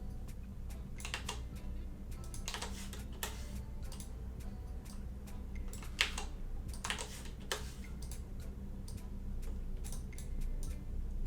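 Computer keyboard and mouse being used: irregular clicks and keystrokes, a few louder ones near the middle, over a steady low hum.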